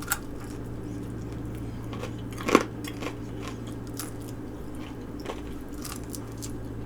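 Close-miked chewing and biting on chicken wings: scattered short wet mouth clicks, with one louder bite about two and a half seconds in. A steady low hum runs underneath.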